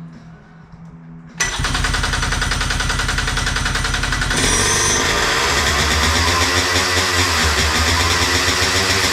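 Two-stroke go-kart engine running loudly, cutting in abruptly about a second and a half in and shifting in tone a few seconds later.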